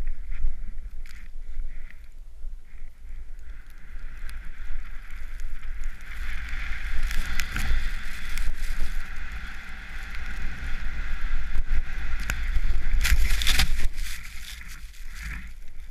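Snowboard running through deep powder, heard as a hiss that swells through the middle, over a low rumble of wind on a helmet-mounted GoPro. Near the end a loud rush of snow sprays over the camera.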